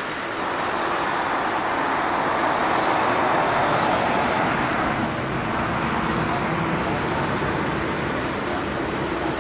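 Boeing 747-8F freighter's four GEnx-2B turbofan engines running at high power on the takeoff roll: a steady jet roar that swells about half a second in and holds.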